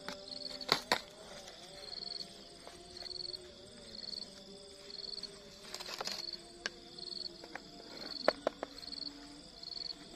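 An insect chirping steadily outdoors: a short high buzzy chirp repeating about once a second. Sharp clicks and taps sound about a second in, near six seconds and near eight seconds, from a metal spoon and a plastic food container being handled.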